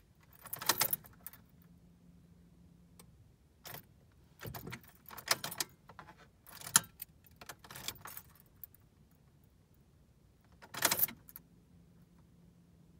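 Ignition key and keyring jangling in a series of short jingles as the key is turned back and forth in the ignition of a 2013 Honda Accord. No cranking is heard: the worn starter motor is failing to engage.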